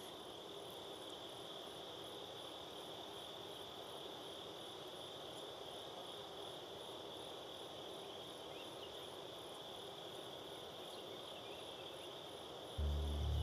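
Steady evening chorus of crickets and other insects: an even high-pitched trill with a fainter, regularly pulsing chirp above it. Near the end, music with deep bass notes starts suddenly.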